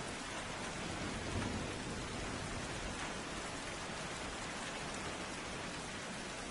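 Steady rain falling, with a brief low rumble of thunder swelling about a second and a half in.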